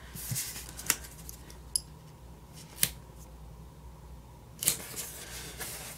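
Paper and sticker handling on a desk: a few scattered light clicks and taps, then a louder rustle of paper about four and a half seconds in, as a planner sticker is peeled off its sheet and pressed onto a page.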